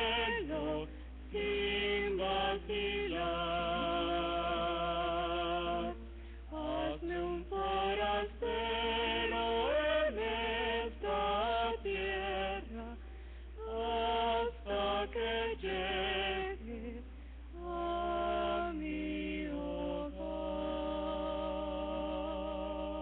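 Voices singing a Spanish hymn as a church special number, with long wavering held notes, and one note sustained through the last few seconds.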